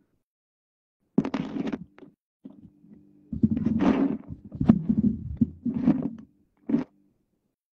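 Phone being handled with fingers close to its microphone: muffled rubbing and dull thumps in several bursts. The longest and loudest burst falls in the middle.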